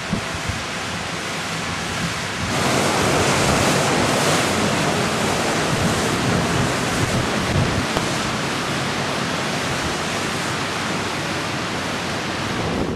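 Steady rushing noise of hurricane wind and floodwater, louder from about two and a half seconds in.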